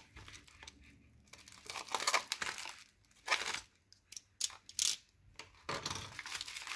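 Plastic bubble mailer being slit with a box cutter and pulled open: crinkling and tearing of the plastic in short bursts, with a few sharp crackles past the middle and a longer rustle near the end.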